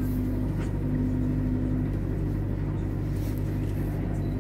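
Canal boat's engine running with a steady low drone, heard from on board. A brief humming tone sits over it twice in the first two seconds.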